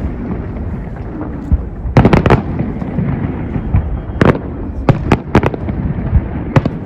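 Fireworks display: shells bursting with sharp bangs in clusters, a quick group of three about two seconds in, more a little after four seconds and around five seconds, and two near the end, over a continuous low rumble.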